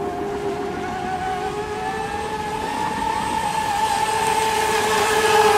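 Radio-controlled speedboat running at speed, its motor giving a steady high whine that rises slightly in pitch and grows gradually louder.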